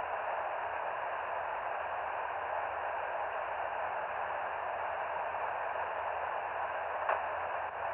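Kenwood TH-D74 handheld transceiver's speaker giving a steady, narrow-band hiss of SSB receiver noise, with one short bang near the end. The owner is unsure whether this banging is normal.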